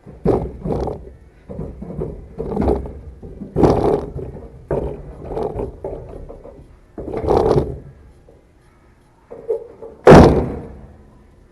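A series of heavy thuds and clunks as the removed Miata differential and gear are handled and loaded into a truck, coming in irregular bunches, with one loud slam about ten seconds in.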